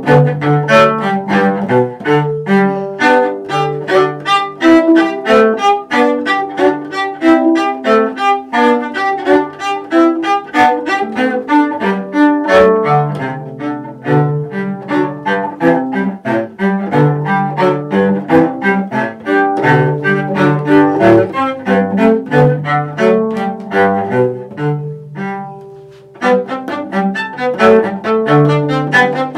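Solo cello played with the bow, a quick, busy line of short notes. About 25 seconds in, a note dies away into a brief pause, then the playing picks up again.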